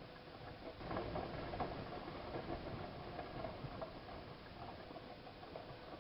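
Siemens iQ WIQ1430 front-loading washing machine in its wash cycle on the 90 °C boil wash programme: the drum turns the laundry with light clicking, over a steady faint hum. It gets louder about a second in and then eases off gradually.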